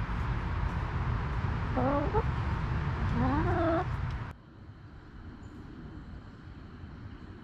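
A hen gives two pitched calls, each bending in pitch, about a second and a half apart, over a steady outdoor background. About four seconds in, the sound cuts off suddenly to a much quieter background.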